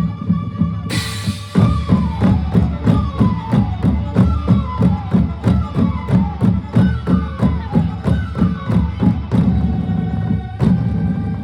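Manipuri drums played in a fast, driving rhythm, about three to four strokes a second, with a ringing tone that steps down in pitch over several repeated runs.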